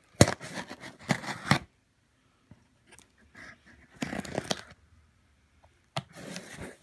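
Rustling and scraping of a padded paper mailer and a cardboard box being handled and shifted about, in three short bursts with a few sharp clicks between quiet gaps.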